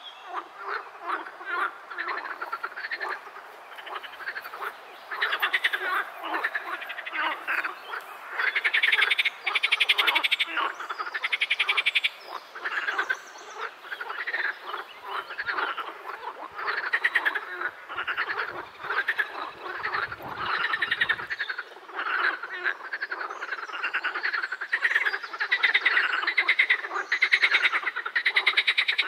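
A chorus of many European water frogs (edible frogs) calling together: overlapping rapid rattling croaks that swell and ease in waves, with no break.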